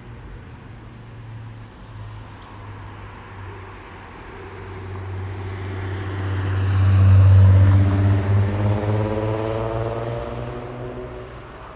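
A motor vehicle driving past: its engine and road noise grow steadily louder, peak about seven seconds in, then fade as it moves away.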